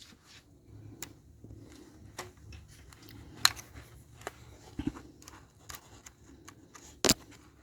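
Scattered light clicks and taps of small parts as a model locomotive's wheelsets, with their bronze bearings, are handled and fitted back into the truck; the sharpest click comes near the end.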